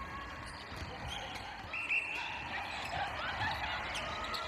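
Netball game sounds on an indoor wooden court: players' shoes squeaking briefly about two seconds in, with the ball and footfalls thudding on the floor.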